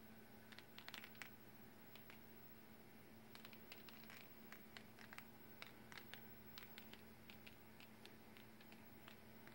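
Faint, scattered ticks of drops of liquid paint landing on a sheet of paper, over a low steady hum in near silence.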